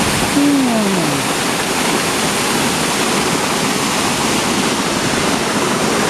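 Triberg Waterfalls cascading close by: a steady, loud rush of falling water.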